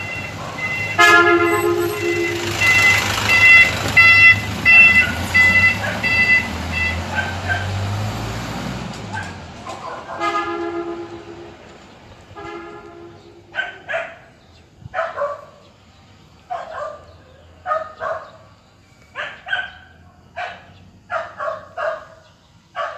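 A horn honks and a pulsing beep sounds over a rushing hiss for several seconds. Two more honks come at about ten seconds, then a dog barks over and over, about once a second, through the second half.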